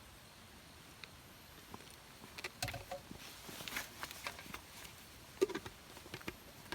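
Scattered small clicks, knocks and rustles, with a busier stretch of rustling in the middle and one louder knock about five and a half seconds in.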